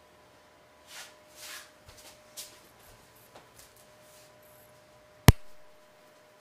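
Soft rustling and a few small clicks, then a single sharp, loud click a little past five seconds in, over a faint steady electrical whine.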